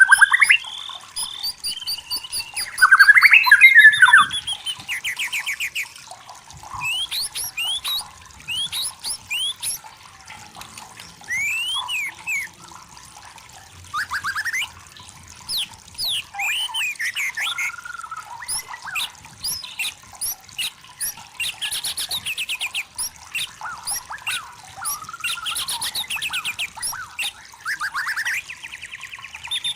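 White-rumped shama singing a varied song of clear whistles, trills, rapid rising sweeps and harsh notes, loudest a few seconds in.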